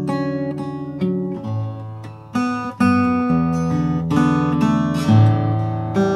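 Acoustic guitar playing a chord progression, a new chord struck about once a second and left to ring.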